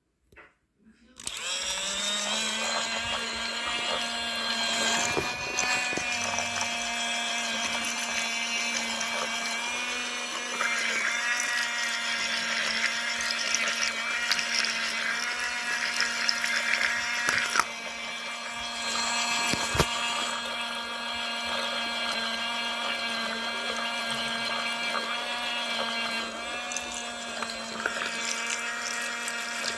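Toy washing machine's small electric motor switching on about a second in and running steadily with a buzzing whine as its drum spins, with a few brief clicks.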